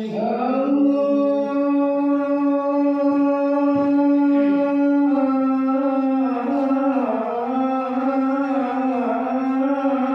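Men chanting a devotional dikir. The voices hold one long, drawn-out note steady for several seconds, then waver into ornaments around the same pitch.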